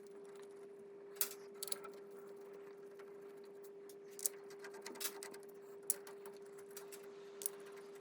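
A few faint, sharp metallic clicks and taps of bolts and a hand tool as the differential cover bolts are fitted and snugged up, over a steady hum.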